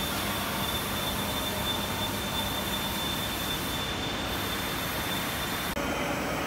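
A 5-litre lab vacuum emulsifying mixer running: a steady mechanical hum with a thin, steady high whine over it. The whine stops abruptly near the end and the sound turns duller.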